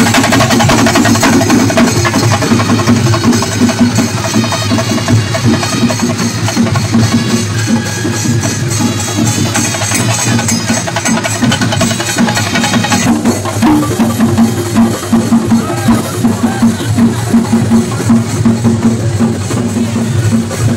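Kerala chenda drum troupe playing a fast, dense rhythm with sticks. About two-thirds of the way through, the bright upper layer over the drums cuts off and the drumbeats stand out more separately.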